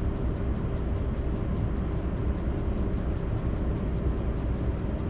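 Audi A8 D3's 6.0 W12 engine running steadily at a constant speed, with no revving. It is the engine being checked for misfires.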